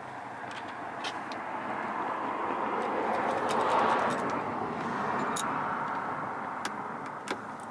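Rushing noise of a passing vehicle, swelling to a peak about four seconds in and then fading away. A few light clicks are heard over it.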